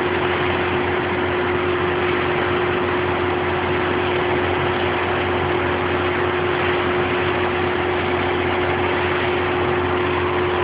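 A concrete truck's diesel engine running steadily, with an unchanging hum.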